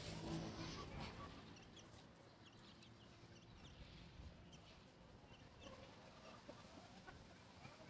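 Chickens clucking faintly, with short high chirps here and there.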